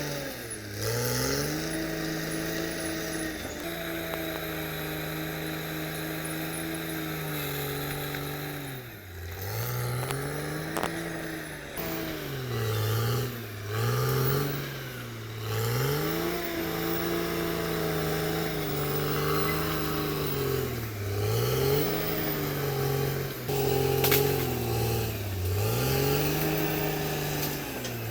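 Caterpillar D6R XL bulldozer's diesel engine running at high revs, its pitch sagging under load and climbing back again and again as the dozer works.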